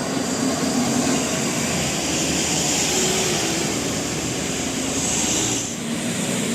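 A passing vehicle: a steady rush of engine and road noise that dips briefly near the end.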